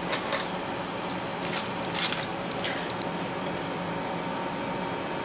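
Exhaust fan running steadily beside a BGA rework station, with a few short rustles and clicks of handling, the loudest about two seconds in.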